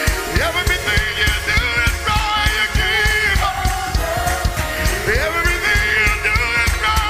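Live gospel praise-break music: a church band with a fast, driving drum-and-bass beat, and a man singing high, bending lines into a microphone over it.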